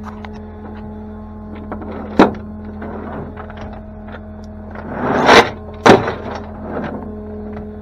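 Rusty steel tow chains rattling and clanking against the aluminium deck of a flatbed tow truck as they are gathered up, with a sharp clank about two seconds in and a louder burst of rattling ending in a hard clank near six seconds. A steady low hum runs underneath.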